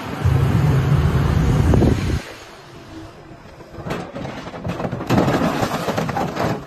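Heavy machine engine running with a loud low rumble for about two seconds, then after a cut an orange-peel grapple crushing an old pickup truck's cab: crunching metal and breaking windshield glass, with several sharp cracks.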